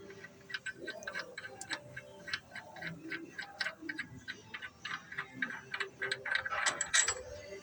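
Ratchet wrench clicking steadily, several clicks a second, as the last mounting bolt of a bolt-on wheel hub assembly is backed out; the clicks grow louder and scratchier near the end.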